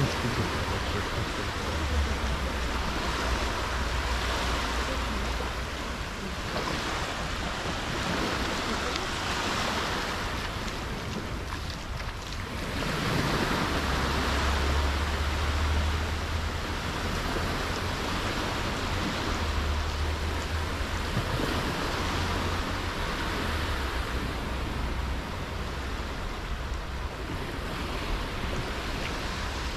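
Wind buffeting the microphone in uneven gusts over a steady rushing wash of noise.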